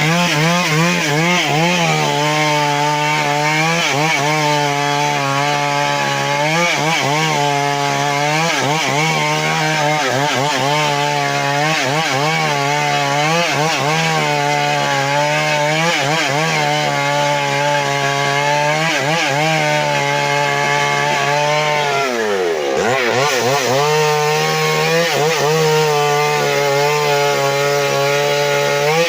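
Chainsaw running hard while cutting through wood, its engine pitch sagging and recovering every second or two as the chain bites. About three-quarters of the way through it bogs down sharply, then revs back up.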